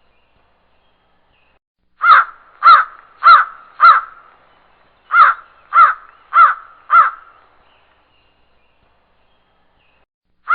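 Crow cawing: a run of four caws about two seconds in, another run of four around five seconds in, then one more caw at the very end.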